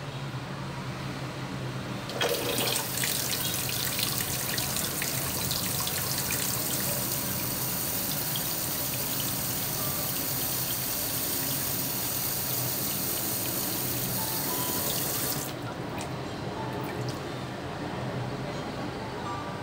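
Kitchen tap running water into a stainless steel sink, coming on about two seconds in and shutting off about four seconds before the end. The water is being flushed through hog intestine casing to rinse it clean.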